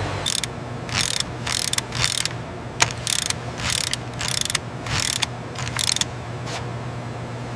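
Factory machinery running: a steady low hum with short mechanical clacks and hissing bursts about twice a second.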